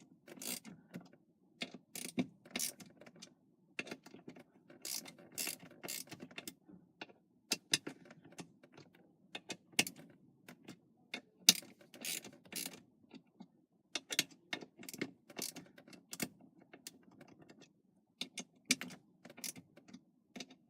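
Ratchet clicking in short, irregular runs as steering-wheel bolts are tightened a little at a time in a star pattern.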